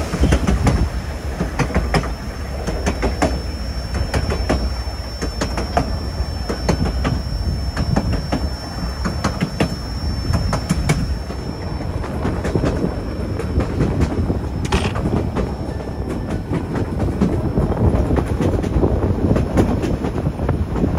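White Pass & Yukon Route narrow-gauge train rolling along the track: a steady low rumble with irregular clicks and clacks of the wheels over the rail, and a faint high whine that stops about halfway. A single sharp knock comes about fifteen seconds in.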